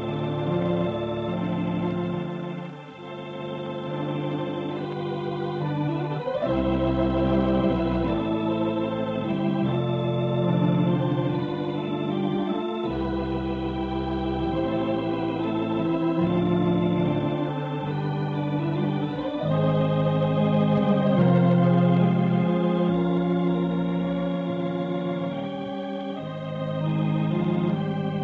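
Organ music: slow, held chords over a bass line, with deep pedal notes coming in twice. The sound is dull, with no high treble, as on an old radio transcription disc.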